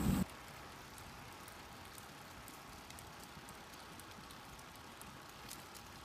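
Faint road noise of bicycles rolling along a paved road: a steady low hiss with light, scattered ticks.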